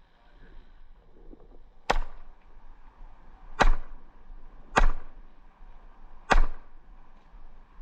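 Airsoft gun firing four single shots, each a sharp crack, spaced a second or more apart.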